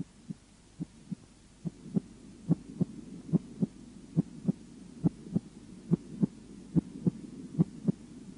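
Human heart sounds played for auscultation teaching: a steady lub-dub of the first and second heart tones in pairs, about 70 beats a minute, growing louder over the first couple of seconds.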